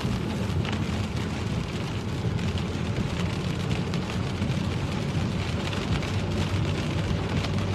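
Steady car-interior noise while driving in heavy rain: a low engine and road rumble with the hiss of tyres on a wet road and rain on the car.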